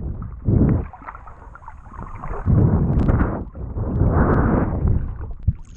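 Rushing wind and water noise of a boat under way, swelling and easing in surges every second or so.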